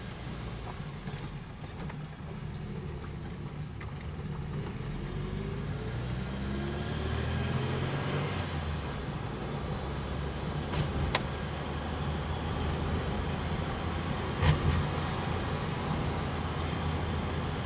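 Opel Kadett C's engine running on the move, heard from inside the cabin, its pitch rising for a few seconds in the middle. Sharp knocks from the car going over bumps come twice about eleven seconds in and again a few seconds later.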